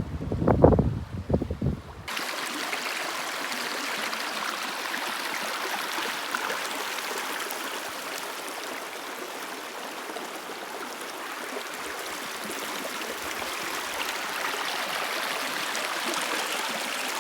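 Wind buffets the microphone with low gusts for about two seconds. It then cuts abruptly to the steady rushing of a stream's flowing water.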